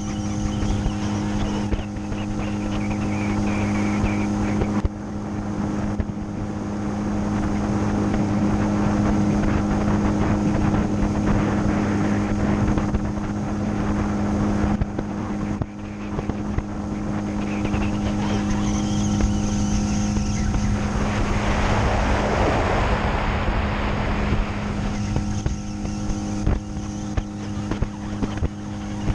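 Outboard motor running at a steady pace as the fishing boat moves across calm water, with wind buffeting the microphone. A louder rush of noise comes for a few seconds past the middle.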